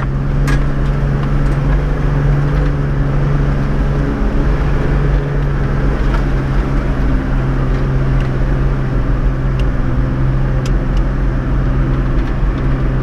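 Toyota LandCruiser 105 series engine running steadily as the 4WD crawls along a rutted dirt track, a constant drone with a few faint clicks.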